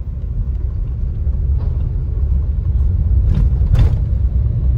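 Car rumbling: a loud, steady low rumble with a few light knocks over it.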